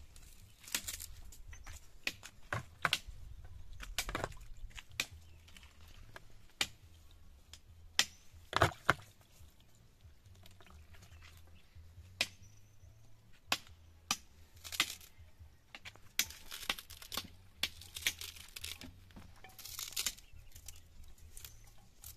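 Pieces of meat being cut up and handled by knife and hand: scattered sharp knocks and clicks mixed with tearing and crinkling noises. The loudest are two knocks in quick succession about nine seconds in.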